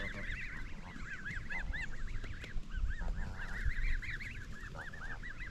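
Canada goose goslings peeping continuously, a dense run of short high chirps overlapping several times a second, with a few brief lower calls from the birds mixed in.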